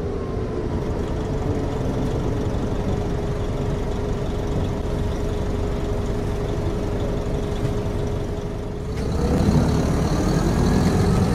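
City transit bus settling to an idle with a low engine rumble and a steady whine. About nine seconds in it pulls away, louder, with its whine rising in pitch.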